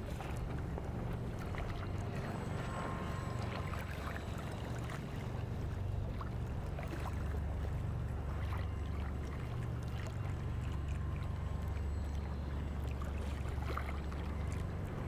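A steady low motor rumble with even water noise and light splashes over it.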